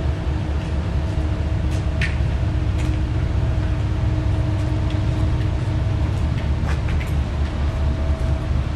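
Steady low rumble of the departing car ferry New Koshiki's engines, with a faint even hum over it. A few brief high chirps sound now and then.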